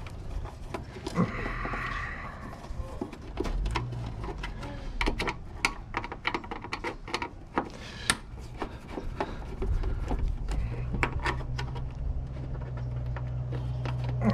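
Scattered clicks, taps and clanks of hand tools on metal parts as a motor and its controller are taken apart for scrap. A steady low hum comes in about ten seconds in.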